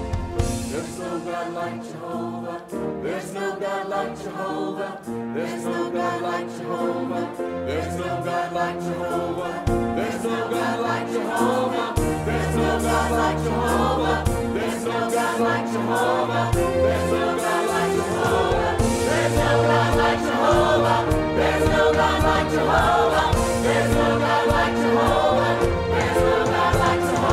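Church choir singing a gospel worship song with instrumental accompaniment, growing louder as it goes.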